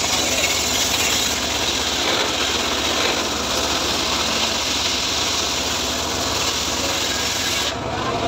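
Homemade engine-driven circular sawmill blade ripping lengthwise through a teak log: a steady, harsh cutting noise over the running engine. The high cutting hiss drops away sharply near the end.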